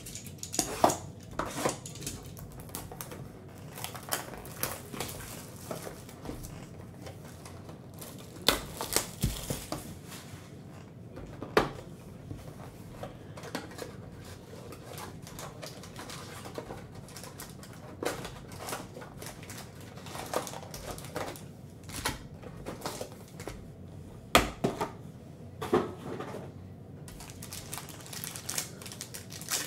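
Cardboard hobby box of trading cards being opened and its foil card packs handled: rustling and crinkling packaging and a pack wrapper being torn, with irregular sharp taps and clicks from the box and packs.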